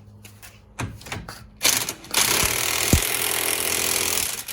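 Impact wrench hammering the axle hub nut down on a new CV axle: a short burst about a second and a half in, then a steady run of about two and a half seconds that stops suddenly.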